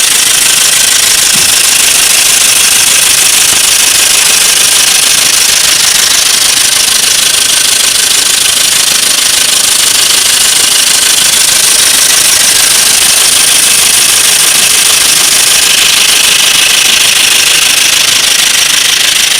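A three-cylinder car engine running with a steady metallic clicking from the valvetrain, which the mechanic suspects comes from faulty hydraulic lash adjusters (lifters).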